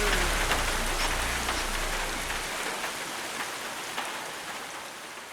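Steady rain with scattered sharp drops, slowly fading out.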